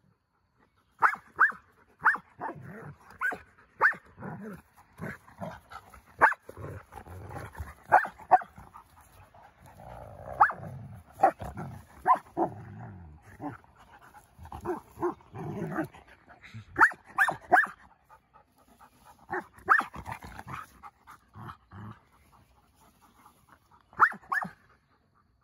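A husky and wolf dog pups play-fighting: short, sharp barks and yips in quick runs, with low growling in the middle stretch.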